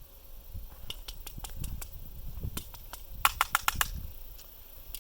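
A string of small, sharp clicks from handling pistol gear while getting ready to reshoot. They come scattered at first, then as a quick run of about five louder clicks a little past the middle.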